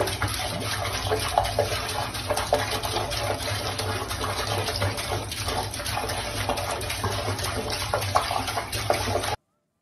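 Water running steadily from a sink tap and splashing into the basin. It stops abruptly near the end.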